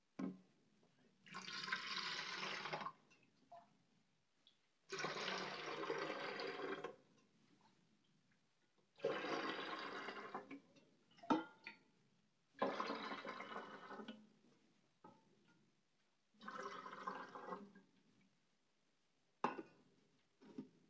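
Water being poured into a room humidifier's water tank in five pours of about two seconds each, with a few light knocks between them.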